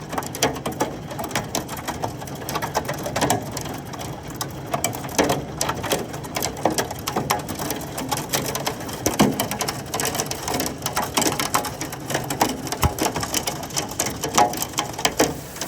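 Heavy hail falling: a dense, irregular patter of hailstones striking hard surfaces, many sharp clicks a second over a steady hiss.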